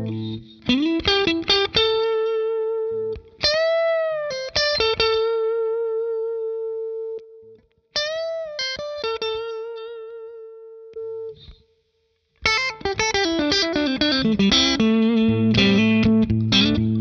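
Single-coil electric guitar played through a Strymon Compadre compressor in its transparent, optical-style Studio mode, which evens out string volume and lets notes hold. Bent notes and long sustained single notes, a brief pause about twelve seconds in, then a fast descending run of notes.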